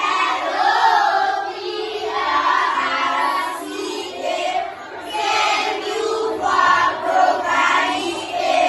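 A group of children singing together in unison, with no spoken words.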